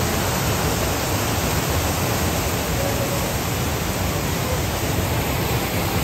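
Steady rush of a strong natural spring's water pouring out and churning into its pool.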